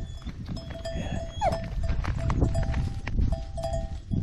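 Bells on a grazing flock of sheep ringing in short, irregular clinks. Underneath is a low rumble of wind on the microphone, and there is one brief falling cry about a second and a half in.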